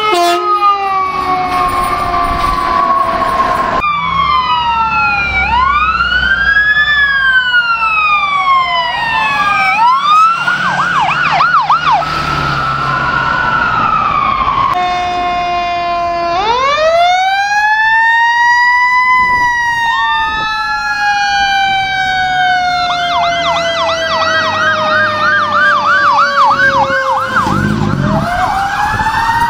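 Emergency vehicle sirens in a series of clips. Electronic sirens sweep slowly up and down in a wail, then switch to a fast yelp. Later a mechanical Q-type siren winds up to a high pitch and slowly winds down over several seconds, with a fast electronic yelp over it near the end.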